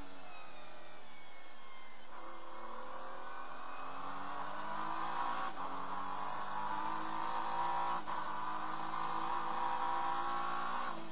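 Acura NSX GT3 race car's twin-turbo V6 heard from inside the cockpit, accelerating hard through the gears. The pitch climbs in each gear, with quick upshifts about five and a half and eight seconds in.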